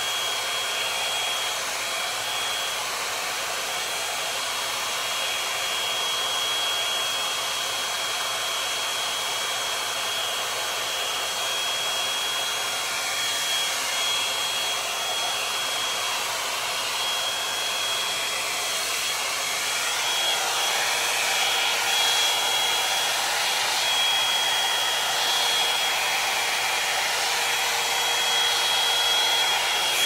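Revlon One-Step Volumizer hot-air brush running: a steady rush of blown air with a thin high whine through it, growing somewhat louder about two-thirds of the way in.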